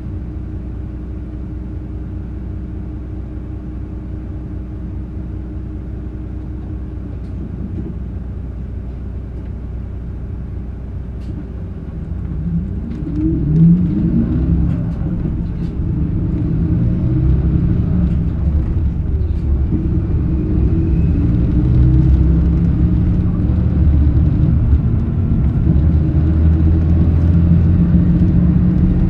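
Mitsubishi Fuso PA-MK27FH (Aero Midi) diesel bus engine heard from inside the bus. It runs steadily at low revs, then about twelve seconds in it revs up with a rising note as the bus pulls away, and it runs louder from there on.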